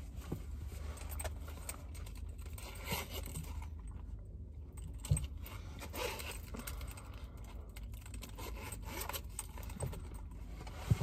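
Rummaging through things in a car while searching for a paper receipt: scattered rustles, scrapes and light clicks over a low steady hum.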